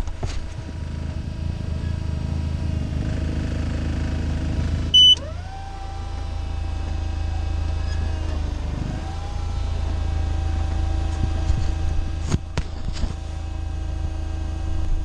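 Forklift engine running with a steady low drone. About five seconds in there is a short, loud beep, and then a whine rises and holds, dipping briefly near nine seconds. A few sharp clicks follow near the end.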